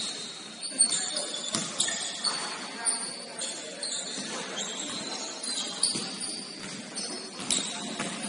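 Basketball game on an indoor court: sneakers squeaking in short high chirps and the ball bouncing with sharp thuds several times, with players' voices in the hall.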